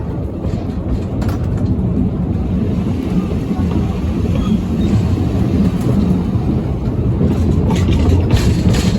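Narrow-gauge train with four coaches running on the line: a steady low rumble that grows slightly louder, with sharp wheel clicks near the end.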